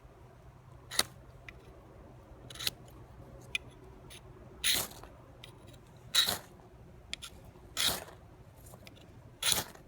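Knife spine scraped hard down a fire-starting rod to throw sparks: six quick rasping strokes, one about every second and a half.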